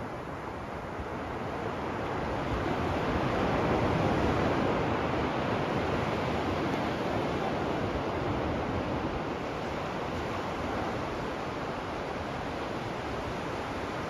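Ocean surf washing onto a sandy beach. A wave swells to its loudest about four seconds in, then eases back into a steady wash.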